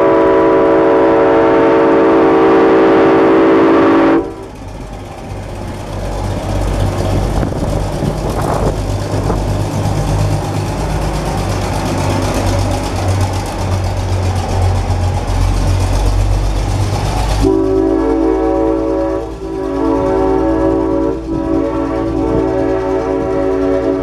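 The Nathan M5 five-chime air horn on a GE 80-ton diesel switcher blows a long chord for about four seconds, then the locomotive's diesel engine rumbles as it passes close by, and near the end the horn sounds again in three blasts with short breaks between them.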